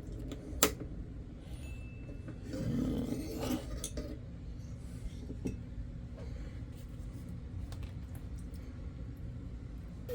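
Light handling sounds while a comic-book wash is set up: a sharp clink about half a second in, a brief rustle a few seconds in, then a few soft knocks.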